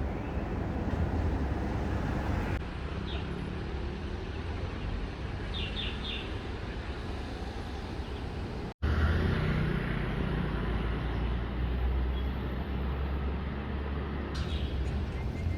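Outdoor ambience: a steady low rumble and noise with a few short chirps. It changes abruptly three times as one recording is cut to the next, with a brief dropout about nine seconds in.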